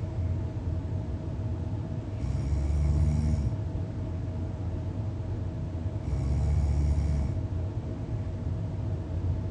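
A person snoring deeply, 'like an elephant': two long snores about four seconds apart, each lasting a little over a second, with quieter breathing between them.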